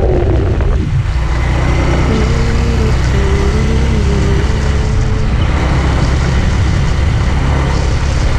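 Suzuki Big Boy 250 motorcycle cruising at a steady speed on a paved road: an even engine and road rumble, with wind blowing across the camera microphone.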